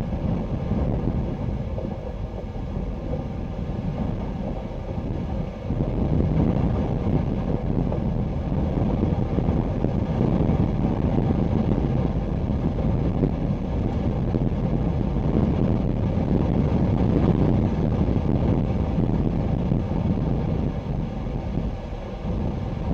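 Wind buffeting the microphone: a loud, low rumble that grows stronger about six seconds in.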